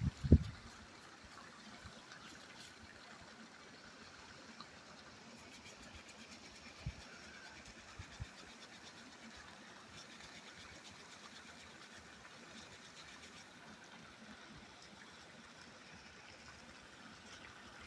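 River water flowing and rippling steadily. A loud low thump just at the start and two faint low knocks about halfway through.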